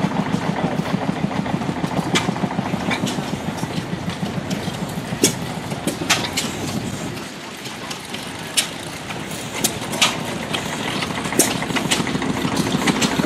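Several small gasoline engines running with a fast, even beat, a little quieter midway, with a few sharp pops now and then.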